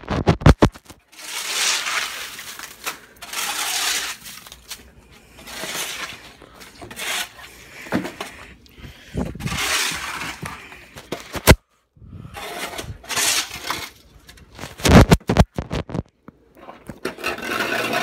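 Repeated swells of scraping, crunching noise, each a second or two long, as snow is scooped and packed by hand. There are a few sharp knocks from the phone being handled, the loudest about 11 seconds in.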